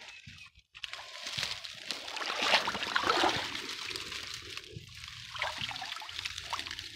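Shallow creek water trickling and sloshing as hands reach in and pull a glass bottle up from the rocks, with splashing that is loudest about halfway through.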